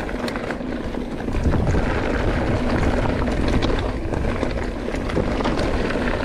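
Mountain bike riding fast down a dirt trail: tyres rumbling over the dirt, the bike rattling with scattered small knocks, and wind buffeting the microphone.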